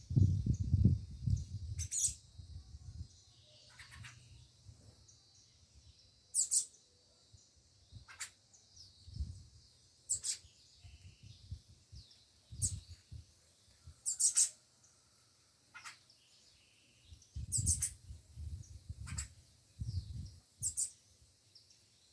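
Small birds chirping: short, very high chirps repeated every second or two. A low rumble is heard at the start and again in bursts about two-thirds of the way through.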